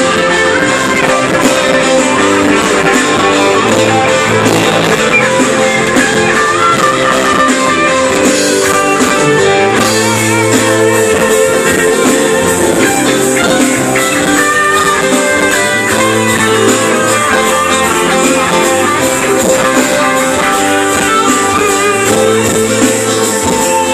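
Live worship band playing loudly, with guitar, keyboard and drums.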